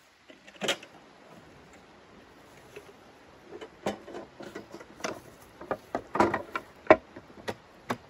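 Irregular clacks, knocks and rustling as folding metal camp furniture is handled, with the sharpest clack about seven seconds in.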